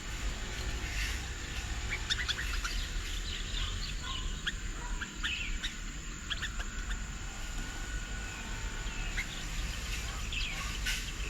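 Several small birds chirping and calling, with many short, sharp high chirps scattered throughout, over a steady low rumble.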